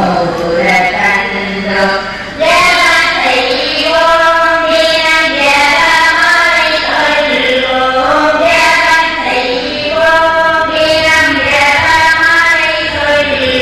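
Voices singing a church hymn together, with long held notes; the singing gets louder about two seconds in.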